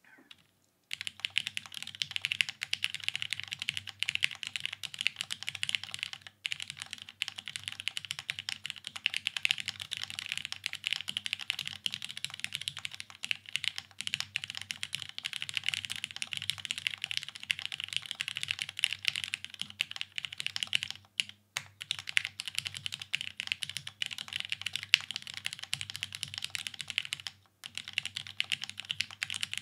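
Continuous fast typing on a Dolice custom mechanical keyboard built with lubed Vintage Black linear switches on an aluminium plate, no dampening and GMK Striker keycaps: a steady stream of keystroke clacks. It starts about a second in and breaks off briefly three times, the last near the end.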